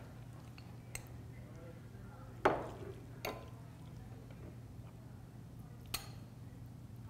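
Metal serving spoon and tongs knocking against a glass plate as food is dished out: four separate clinks, the loudest about two and a half seconds in, over a steady low hum.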